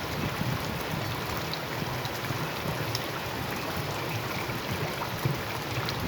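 Steady rain falling, a dense even hiss scattered with small drop ticks over a low rumble.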